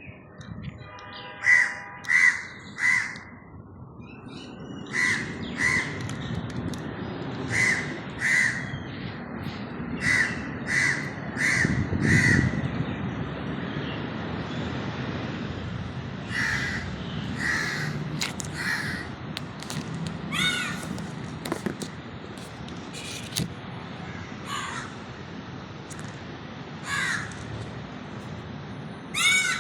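A bird calling repeatedly in short series of two to four loud calls, with pauses between the series, over a steady low background noise.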